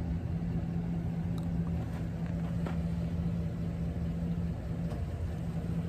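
An engine idling with a steady low hum, with a few faint clicks over it.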